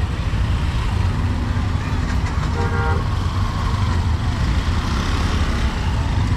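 Street traffic running with a steady low rumble, and a short vehicle horn toot about two and a half seconds in.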